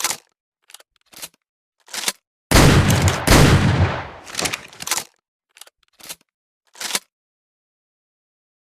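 Double-barrel shotgun: a few sharp mechanical clicks of the action, then both barrels fired, two shots under a second apart about two and a half seconds in, each ringing off, followed by more clicks of the action being worked.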